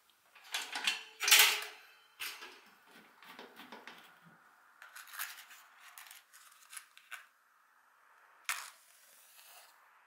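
Metal clicks and clatter from a kerosene heater's wire guard and chimney being unlatched and tilted open to bare the burner. The clatter is loudest about a second in and ends with one sharp strike near the end.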